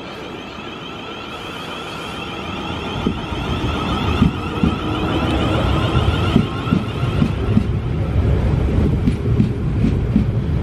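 A South Western Railway Class 450 Desiro four-car electric multiple unit approaches and grows steadily louder, with a steady high whine over its rumble. From about three seconds in it runs close alongside the platform with a heavy rumble and the repeated clack of wheels over rail joints.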